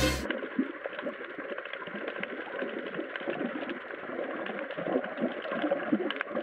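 Underwater reef ambience picked up by the camera's own microphone: a muffled, dense, irregular crackle of small clicks and pops with some watery noise.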